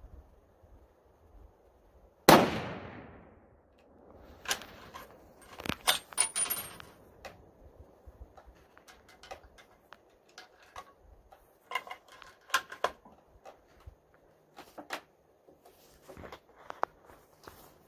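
A .270 bolt-action hunting rifle fires one loud shot about two seconds in, its echo dying away over about a second and a half. Then come scattered metallic clicks and clacks as the bolt is worked and rounds are handled.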